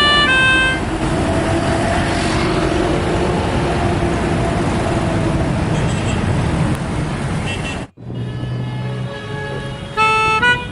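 A bus's telolet multi-tone horn plays a short stepped melody, then gives way to the steady rumble of the bus's engine running. After an abrupt cut near eight seconds comes a low steady tone, and the telolet horn melody starts again near the end.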